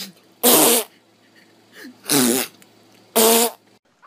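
Three loud fart sounds about a second apart, each a short buzzing blast, with a fainter one between the first two.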